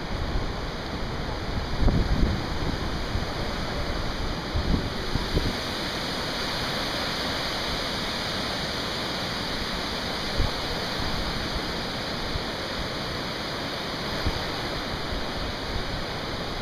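Muddy floodwater rushing and washing across a paved parking lot as a steady rushing noise. A few gusts of wind buffet the microphone in the first few seconds.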